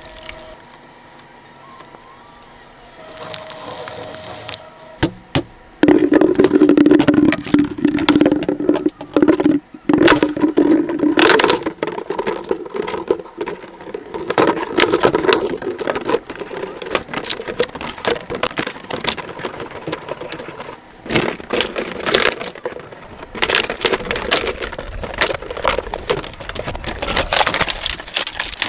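Shredder chewing up toys. After a quieter start, about six seconds in, it turns into a loud, dense run of crunching, cracking and rattling over the machine's hum, which goes on to the end.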